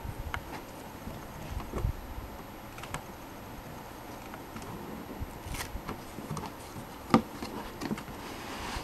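Handling of a thick cardboard board book: a page being turned and a lift-the-flap tab being opened, with light taps, scrapes and rustles, and one sharper tap about seven seconds in.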